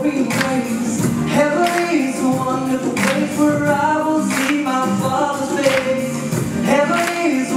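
Music with voices singing a melody together, a sharp percussive hit falling about every second and a half.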